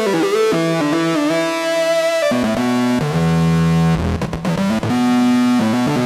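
Roland JD-800 synth (Zenology model expansion) playing its "Wailing Guitar" preset: a synthesized electric-guitar-style lead played as a melodic solo, its notes bending and sliding into pitch, with lower sustained notes joining about two seconds in.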